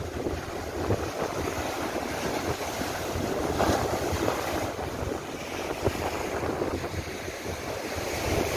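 Large lake waves breaking and washing on the shore in a strong wind, with the wind buffeting the microphone; a steady rush that swells briefly about four seconds in.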